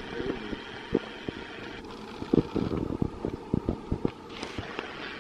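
Wind buffeting the microphone: irregular low thumps over a steady hiss.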